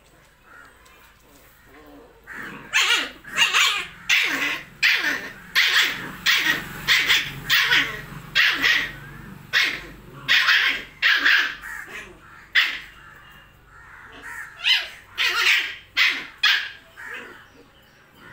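Puppies barking in short, sharp barks, about two a second, while a Doberman puppy and a German Shepherd puppy play-fight. The barking starts a couple of seconds in and goes on with one short break until near the end.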